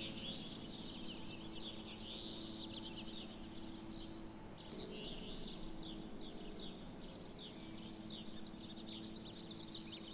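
Small birds chirping and twittering continuously in quick, high, overlapping calls, over a low steady hum.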